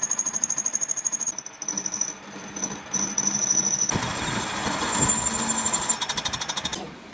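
Power tools working metal: a fast, even rattle with a high steady whine, changing abruptly every second or so, with a harsher, hissier stretch about four seconds in.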